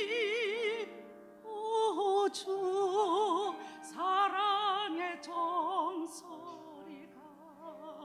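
A woman singing a hymn solo in a full, operatic style with wide vibrato. She holds a long note that ends about a second in, and after a short breath the melody goes on, softening near the end.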